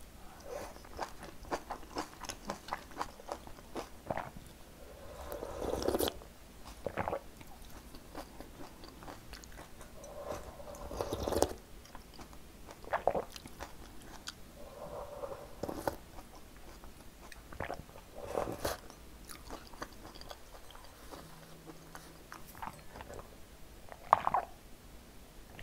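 Close-miked eating: a mouthful of fresh napa cabbage kimchi chewed with many crisp crunches, then two swelling slurps of perilla-seed soup from a spoon, with more chewing between, and a sharp sound of drinking from a glass near the end.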